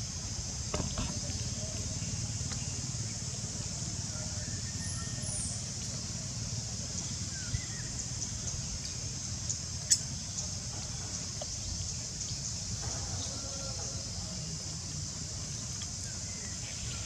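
Outdoor background: a steady high hiss over a low rumble, with a few faint short calls and one sharp click about ten seconds in.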